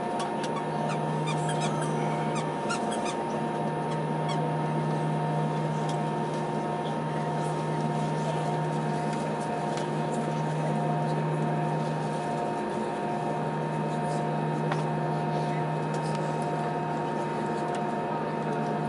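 Steady cabin hum of a jet airliner with its engines idling on the ground, holding several steady tones, a low one and a couple higher up. A few light ticks and squeaks come in the first few seconds.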